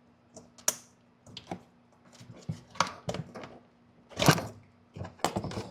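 Scattered clicks and knocks of hand tools and hard plastic parts being handled, with one louder knock a little past the middle, as the factory amplifier is being unfastened.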